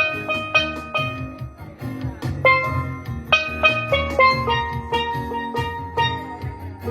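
Steel pan playing a melody, each struck note ringing on, over a low bass accompaniment.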